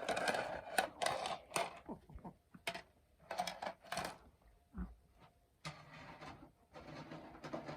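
Food-preparation handling noises: irregular clicks and knocks with bursts of rustling, and a steadier rustle with a faint low hum in the last couple of seconds.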